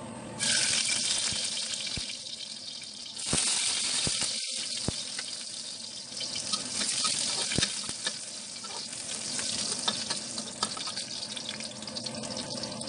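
Chopped garlic sizzling in hot oil in a wok. The hiss grows louder about three seconds in, with a few sharp clicks, and a metal spoon stirs near the end.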